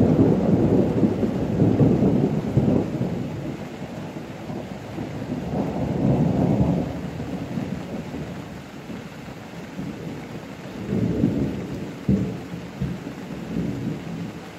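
Thunder rumbling in swells: a long peal at first, another about halfway, and a few sharper claps near the end, over the steady hiss of rain.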